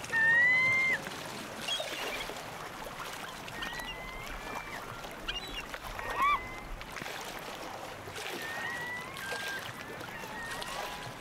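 Gulls calling, a series of drawn-out, gliding cries over a steady wash of surf. The loudest cry comes right at the start, and another sharp one about six seconds in.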